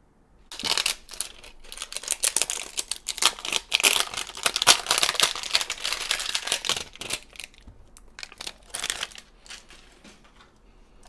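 Clear plastic wrapper crinkling as it is pulled off and crumpled from a popcorn-shaped blind box: a dense crackle for about seven seconds, then two shorter bursts of crinkling before it dies away.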